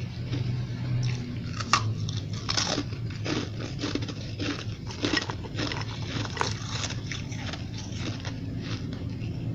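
Hard chunks of snowball ice being bitten and chewed right at the microphone, crunching several times a second, with the sharpest crunch a little under two seconds in. A steady low hum runs underneath.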